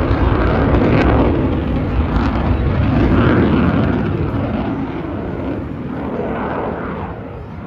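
Eurofighter Typhoon's twin EJ200 turbofan engines, a loud jet roar. It is strongest over the first few seconds and fades gradually through the second half.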